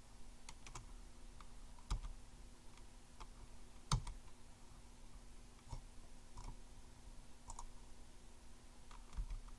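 Faint scattered clicks and light knocks at irregular intervals, the loudest about four seconds in, over a faint steady low hum.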